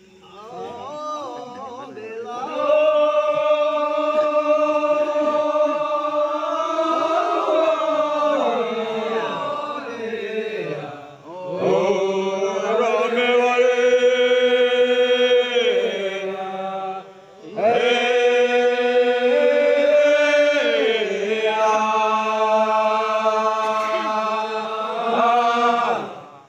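Group of men chanting a Manggarai ritual song, long drawn-out sung notes in three phrases that break briefly about eleven seconds in, again about seventeen seconds in, and near the end.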